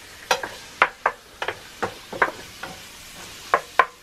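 Wooden spatula stirring diced meat in a non-stick frying pan, its strokes knocking and scraping against the pan about twice a second, over a steady gentle sizzle as the meat browns in oil.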